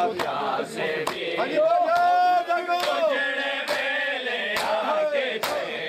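Men chanting a noha together over unison chest-beating (matam): sharp hand-on-chest strikes land at an even beat of a little over one a second. About a second and a half in, a lead voice holds a long wavering note.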